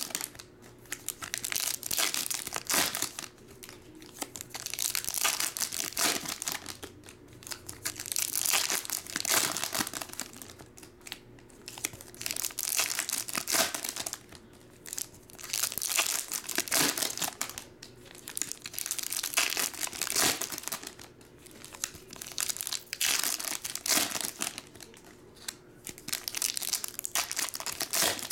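Foil trading card pack wrappers being torn open and crinkled by hand, in repeated bursts of rustling with short lulls between.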